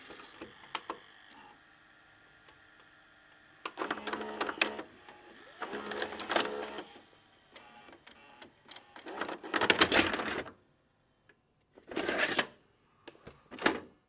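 VHS video recorder's running hum stopping with a few clicks, then its motorized tape mechanism whirring and clattering in five separate bursts, the last one short and cut off at the end.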